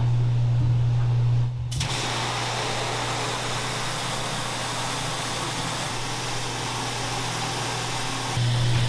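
Tap water running from a faucet into a stainless steel sink, a steady splashing hiss that starts about two seconds in. Before it, a low steady machine hum, which comes back near the end.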